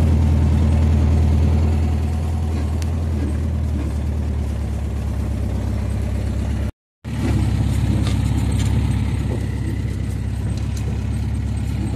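Engine of an open dune buggy running steadily as it drives over sand, a low drone with wind and rattle mixed in. The sound cuts out for a moment about seven seconds in.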